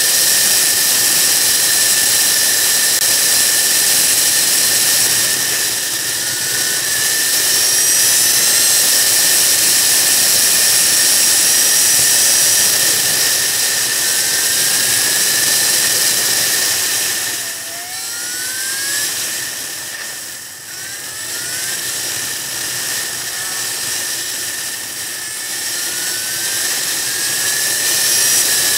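Motorcycle riding at road speed: wind rushing over the bike-mounted camera with the engine running beneath it and a steady high whine. It eases off briefly about two-thirds of the way through, with a few short rising pitch glides, then comes back up.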